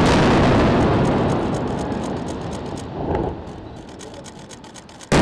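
Air-strike bomb blast: a loud rumble that fades slowly over several seconds, with a smaller swell about three seconds in. A fresh blast starts suddenly near the end.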